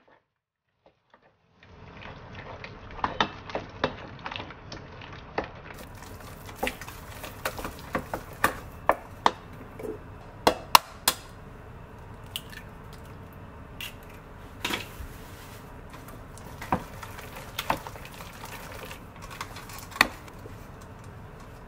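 Wooden spatula beating an egg into thick choux pastry dough in a stainless steel saucepan: steady mixing noise that starts a little under two seconds in, broken by frequent sharp knocks of the spatula against the pan.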